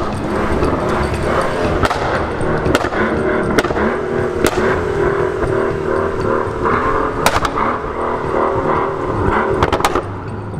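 Mercedes S65 AMG twin-turbo V12 running through an Akrapovič exhaust. Its steady note is broken by sharp exhaust crackles about once a second, with a quick cluster of them near the end.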